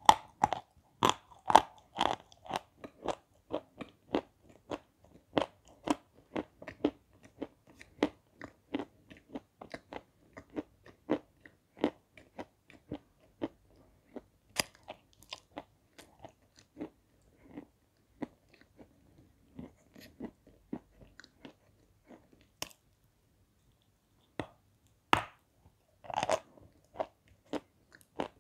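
Close-up crunching and chewing of hard white chalk dipped in thin red clay slurry: crisp crunches about one or two a second that thin out, then after a short lull a few loud new crunches near the end as another bite is taken.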